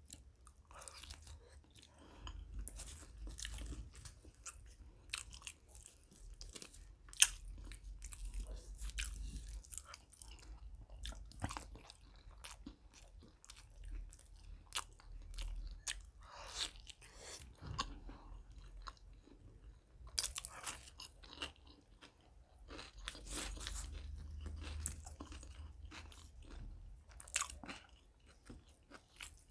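A person chewing and biting spiced chicken liver and gizzard with paratha: a steady run of short mouth clicks throughout, with one sharper click about seven seconds in.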